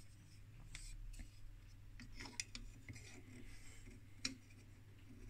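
Faint handling noises: a few light clicks and rubs of fingers on the metal shield can and circuit boards inside the opened analyzer, over a steady low hum.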